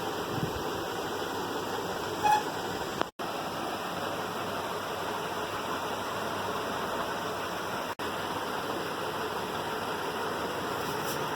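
Steady, hiss-like running noise from a Chevrolet Spark's engine bay with its new AC compressor running. The sound drops out briefly twice.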